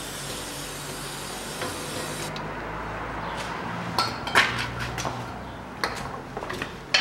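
Aerosol cleaner sprayed through its extension straw, hissing as spilled engine oil is washed off around the oil-pan drain plug, then stopping about two seconds in. Several sharp metallic clinks and knocks follow, the loudest about four seconds in.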